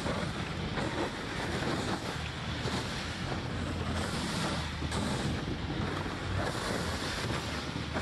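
MTT-136 robotic tracked vehicle travelling along a snowy trail. Its rubber tracks on the snow give a steady rushing noise, with a low hum underneath.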